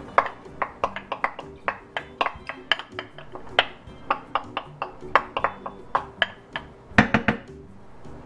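Light, irregular clinks and taps, about three a second, as diced onion is knocked out of a bowl into a frying pan of melted butter, with a sharper double knock near the end, over soft background music.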